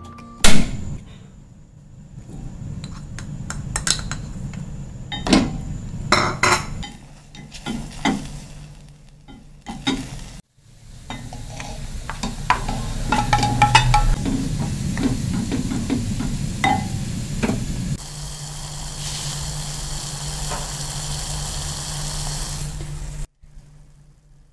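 Utensils knocking and clinking against a ceramic pot, then, after a brief break, sliced marinated pork frying in the hot pot with a steady sizzle that cuts off suddenly near the end.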